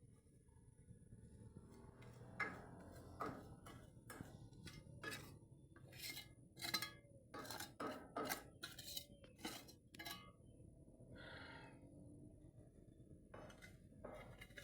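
A run of faint, irregular clicks and knocks, some ringing briefly, from about two to ten seconds in, followed by a short muffled sound.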